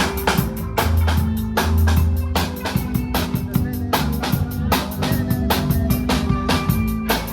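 Live rock band playing, with a drum kit hitting bass drum and snare in a fast, steady beat over sustained bass notes.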